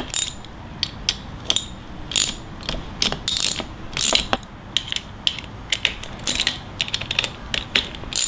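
Hand socket ratchet clicking in repeated short runs as it loosens the camber-adjustment bolts on a Hardrace front upper camber arm.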